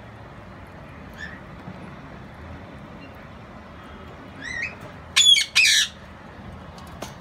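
Green-cheeked conures calling: a couple of faint chirps, then two loud squawks in quick succession about five seconds in.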